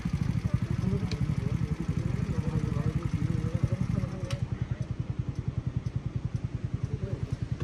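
Motorcycle engine running steadily with a rapid low pulse, with faint voices over it partway through.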